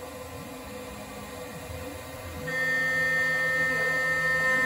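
Small CNC mill's spindle running at about 15,000 RPM while the end mill does adaptive clearing in aluminium stock: a steady high-pitched machining whine. It is softer for the first couple of seconds, then louder from about halfway as the cutter engages harder.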